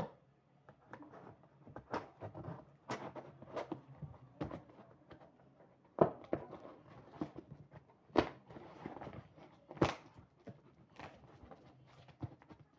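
Handling noise from unpacking a new cricket bat: irregular clicks, knocks and rustling of its packaging, with sharper knocks about six, eight and ten seconds in.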